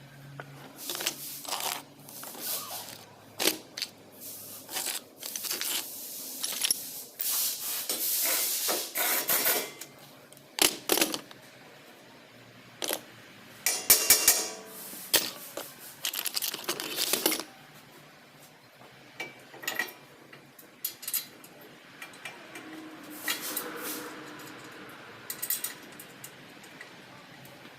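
Metal tools and car parts clinking, knocking and scraping in irregular bursts, with a run of rapid clicks about halfway through.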